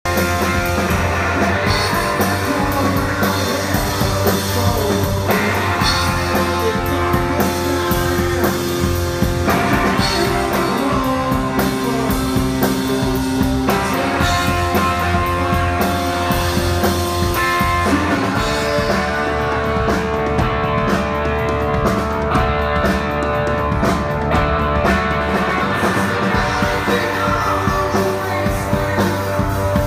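Rock band playing live: electric guitar, bass and drum kit, with a man singing lead into the microphone.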